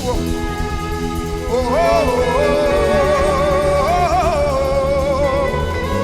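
Worship singing: a single voice holds a long, wavering "oh" over steady held backing chords.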